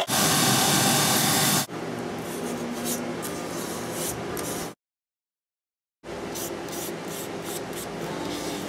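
A bench machine's spinning wheel runs with a loud, even hiss for about a second and a half, then cuts off. After that comes quieter, scratchy rubbing and brushing on a leather handle piece in short strokes, broken by about a second of dead silence, as glue is brushed onto the leather.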